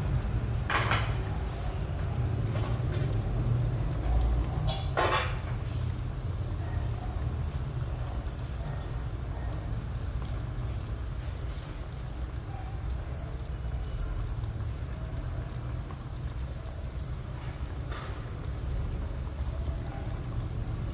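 Sweet-and-sour sauce simmering and bubbling in a frying pan on a gas stove, over a steady low rumble, with a few brief louder pops about a second in, around five seconds and near the end.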